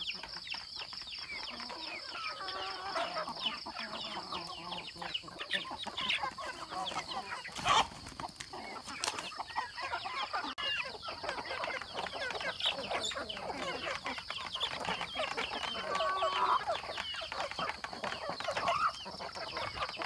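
A flock of young chickens clucking and peeping while pecking feed out of a plastic pipe trough, with a steady run of quick pecking taps. A louder knock comes about eight seconds in, and a steady high-pitched whine sits behind it all.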